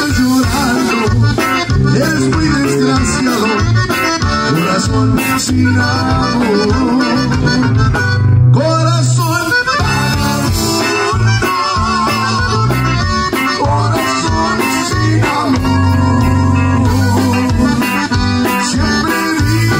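Live Tejano conjunto band playing: a button accordion carries a wavering melody over electric bass, acoustic guitar and a drum kit keeping a steady beat.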